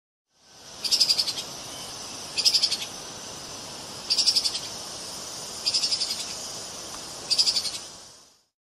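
An animal call: five short bursts of rapid pulses, high-pitched, repeated at even intervals about a second and a half apart over a steady high hiss.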